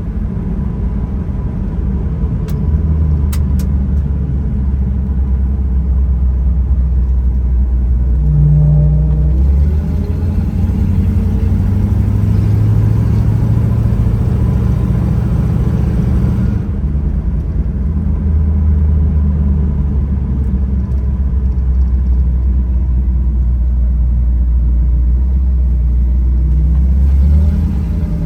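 1956 Ford Crown Victoria's M-code 292 Thunderbird V8 running as the car is driven on the road, a steady low drone with road noise. The drone rises in pitch about a third of the way through as the car picks up speed, then settles back down several seconds later.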